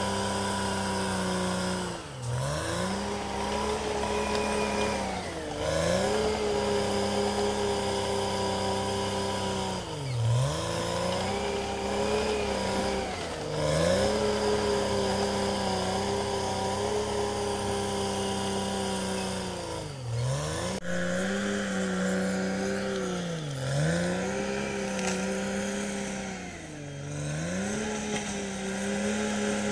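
Caterpillar D6R XL bulldozer's diesel engine running hard, its pitch dipping sharply and recovering every few seconds as it lugs down under the load of the blade pushing soil and brush.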